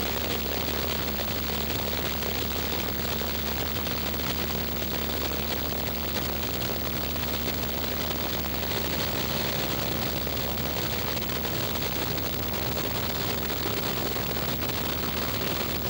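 A Cessna's piston engine and propeller drone steadily in flight, heard from inside the cabin, with a hiss of air over the airframe and no change in power.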